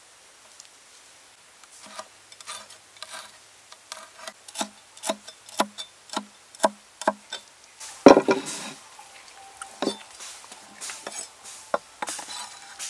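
Cleaver chopping red chilies on a wooden chopping block: a steady knock about twice a second, then one louder, heavier thump about eight seconds in, followed by a few scattered knocks.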